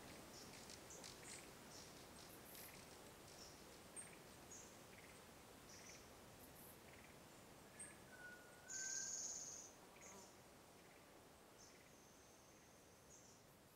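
Faint forest ambience recording of birds and insects: scattered short high chirps, a louder buzzy trill about nine seconds in, and a long steady high note a little later. It grows slowly fainter toward the end.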